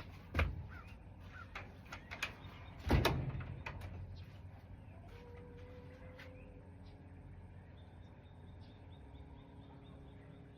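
Two heavy knocks about two and a half seconds apart, the second the loudest with a short ring after it, among scattered small clicks, with a short bird call a few seconds later.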